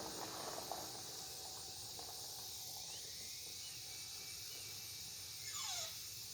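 Quiet outdoor background with a steady high hiss, a few faint chirps in the middle, and one short falling squeal about five and a half seconds in.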